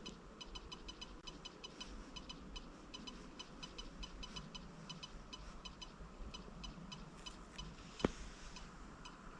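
A MacBook making an abnormal noise: quick, high-pitched electronic ticks coming in short, irregular clusters, with one louder click about eight seconds in.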